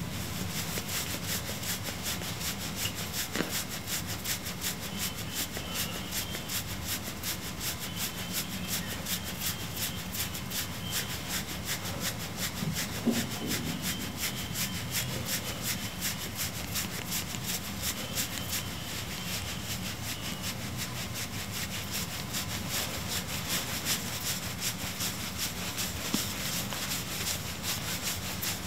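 Domestic cat purring steadily, a fast, even rasp, as its face is rubbed by hand.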